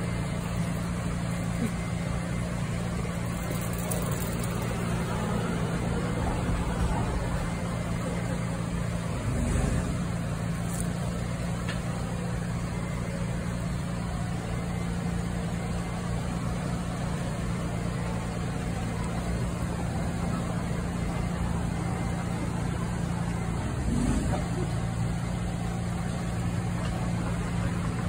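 Steady low mechanical hum with street noise, swelling briefly twice, about ten seconds in and again near twenty-four seconds.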